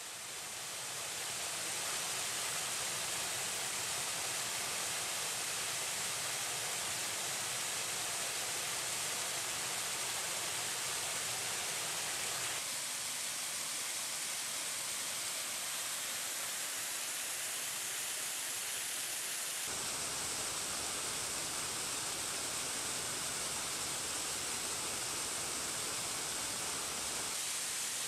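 Black Linn Falls pouring over a rock ledge into a pool: a steady rush of falling water. It fades in over the first couple of seconds and changes slightly in tone a few times.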